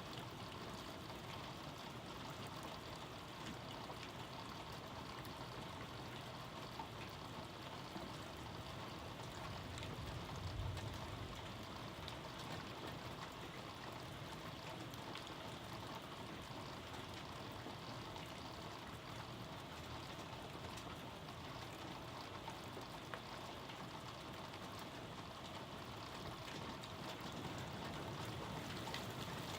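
Steady rain falling, an even hiss of water throughout, with a brief low rumble about ten seconds in.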